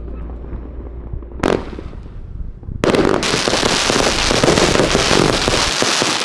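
A fireworks display: one sharp bang about a second and a half in, then from about three seconds a dense barrage of bangs and crackling as the rockets burst.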